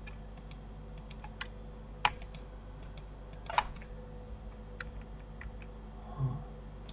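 Scattered single clicks of computer keyboard keys and mouse buttons, a dozen or so at irregular intervals. The loudest are about two seconds in and again about a second and a half later.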